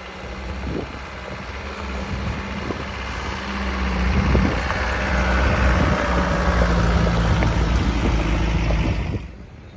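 Off-road 4x4's engine running under load, with a rush of noise that swells over several seconds and then cuts off sharply near the end.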